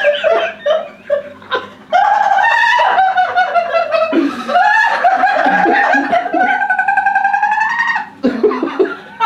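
Two women laughing hysterically: choppy giggles at first, then long, high, held shrieks of laughter that rise slightly in pitch for several seconds before breaking off near the end. A faint steady low hum runs underneath.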